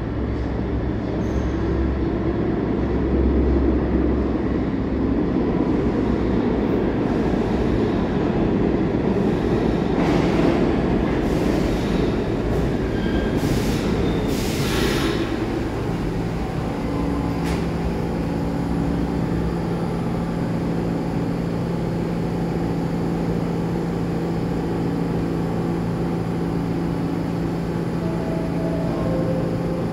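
New York City Subway A train of R46 cars rumbling into an underground station, with high brake and wheel squeals about halfway through as it slows. The stopped cars then give off a steady electrical hum.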